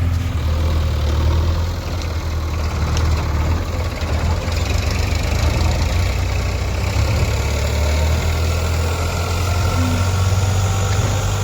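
Diesel engine idling steadily, a constant low hum.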